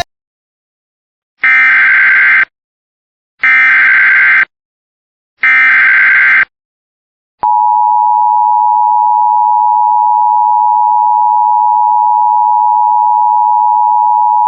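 Emergency Alert System SAME header: three short bursts of digital data warble, each about a second long and about a second apart. About seven seconds in, the steady EAS attention tone begins, signalling that an emergency alert, here a flash flood warning, is about to be read.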